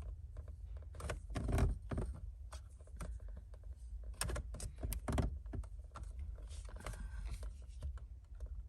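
Screwdriver prying an old rubber bushing out of a Toyota MR2 shifter part: scattered metal clicks and knocks, the loudest about a second and a half in, over a low steady rumble.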